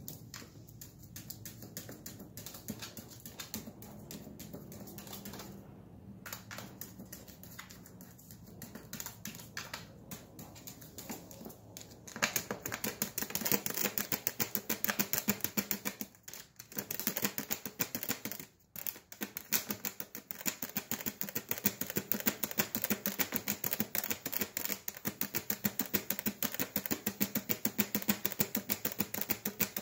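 A puppy's claws scratching and tapping on the hard plastic lid of an automatic pet feeder, a run of rapid clicks. The clicks are sparse at first, then become dense and louder about twelve seconds in, with two short pauses.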